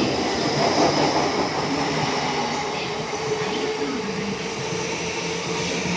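Commuter electric train running into the station and slowing, with wheels clattering on the rails and a steady hum.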